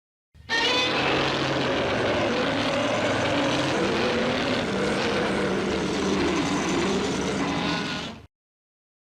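Film sound effect of a flying machine's engine drone: a steady whirring hum with a middle tone that wavers slowly up and down. It starts abruptly with a brief high whine and cuts off suddenly near the end.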